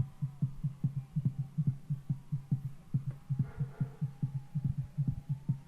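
Muffled bass beat: a fast, even low thumping at about five to six pulses a second, like a beatboxed or rave bass line heard through a wall. A faint higher sound rises briefly a little past halfway.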